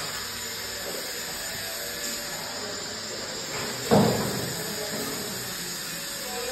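A single sharp knock about four seconds in, over a steady background hiss.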